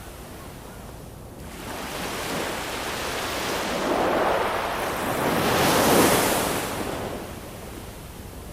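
Ocean waves: a wave swells in about a second and a half in, breaks with a double surge, loudest around six seconds in, then washes back out to a low steady hiss of surf.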